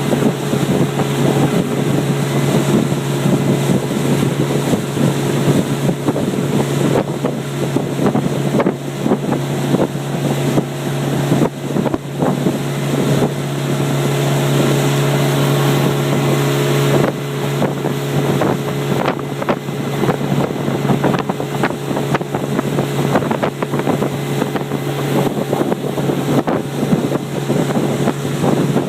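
Motorboat engine running at a steady pitch throughout, with wind buffeting the microphone in frequent short gusts.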